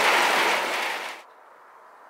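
A steady rushing hiss with no clear pitch cuts off abruptly just over a second in, leaving only a faint background hiss.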